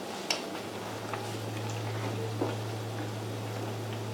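Oil sizzling in a frying pan of breaded squid, with a few light clicks of wooden chopsticks against the serving plate. A low steady hum comes in about half a second in.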